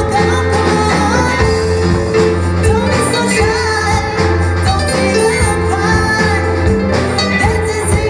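A band playing its own song live, guitar-based music with a singing voice over it.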